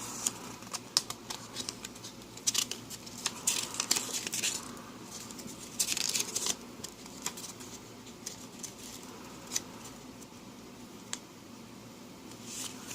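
Paper and playing cards being handled by hand: scattered rustles and small taps and clicks. They are busiest in the first half and thin out to a few faint clicks later.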